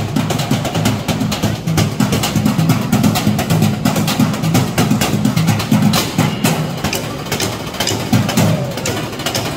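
Music with drums and percussion playing a busy, driving beat.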